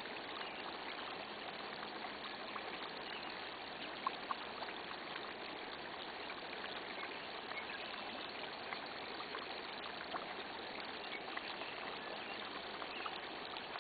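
Shallow creek water trickling steadily, with small pops and bubbling where natural gas from a seep rises up through the water and mud. Two slightly sharper pops come about four seconds in.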